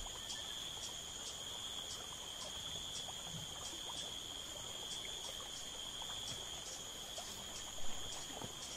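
Insects buzzing: one holds a steady high drone while another chirps in short pulses about twice a second. A brief soft knock comes near the end.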